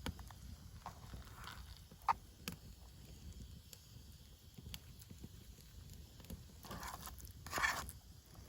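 Quiet camp-cooking handling sounds: scattered light clicks and a sharp knock about two seconds in, with a couple of short rustles, the longest near the end.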